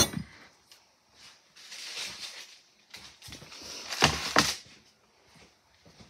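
Kitchen handling sounds at a cutting board: a sharp knock with a brief ringing tail right at the start, soft rustling a couple of seconds in, then more rustling with two quick knocks about four seconds in.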